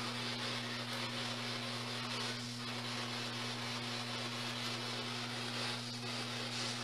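Steady low hum under an even hiss of background noise, with two faint brief sounds about two and a half and six seconds in.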